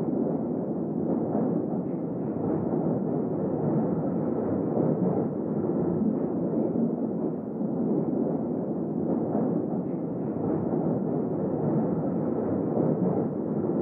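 London Underground train in motion, a steady rumble with faint rattling heard from inside the carriage.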